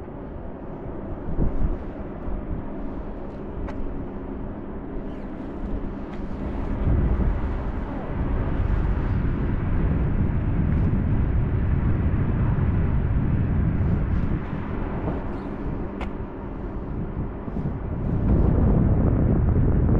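Wind buffeting the microphone on an open waterfront: a low rumble that swells in gusts, louder after about seven seconds and again near the end. A faint steady hum lies under it in the first few seconds.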